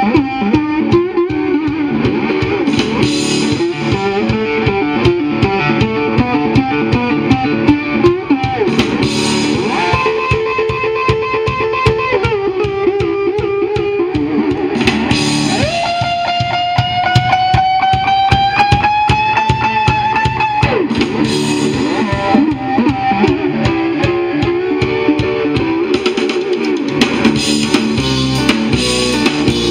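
Live blues band playing through a PA, led by electric guitar over drums. Near the middle, one long held guitar note slowly bends upward.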